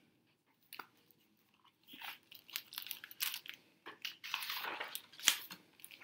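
Hardcover picture book being opened and its endpapers turned: paper rustling and crackling with scattered clicks, starting after about two seconds of near quiet, with a sharper snap near the end.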